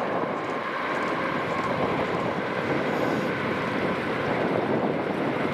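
ScotRail Class 380 electric multiple unit running by, a steady rush of noise with a faint, even whine.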